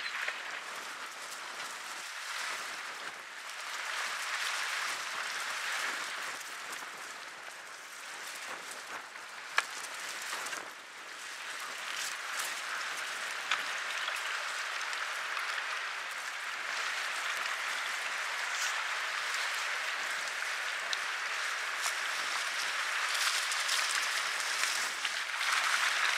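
Steady crackling rush of wind and choppy lake water around reeds, with one sharp click about ten seconds in.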